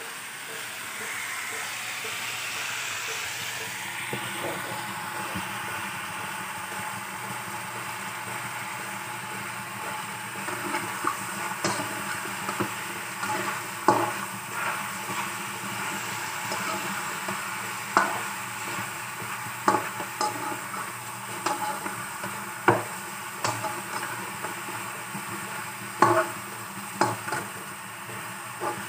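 Chicken pieces sizzling in a frying pan, with a metal spatula stirring them. From about ten seconds in, the spatula clacks and scrapes against the pan at irregular intervals.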